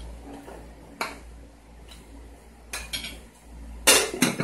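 Spoon clinking against a plate at the table: a few separate sharp clicks, the loudest two close together near the end.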